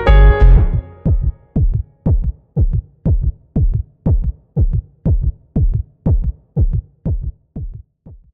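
Phonk beat: the full track with heavy bass drops out about a second in, leaving a single drum-machine hit repeating about twice a second, each one falling in pitch, growing fainter toward the end.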